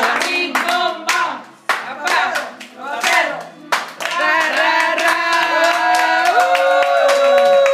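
A group of people sings a birthday song together while clapping along. About halfway through, they sing a long held note, and it steps up in pitch near the end.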